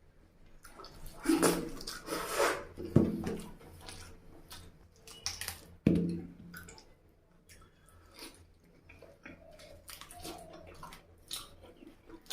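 Close-miked chewing and biting of rice and chicken curry, with wet, squishy mouth and food sounds coming in irregular bursts. Two sharp knocks, about three and six seconds in, stand out as the loudest moments.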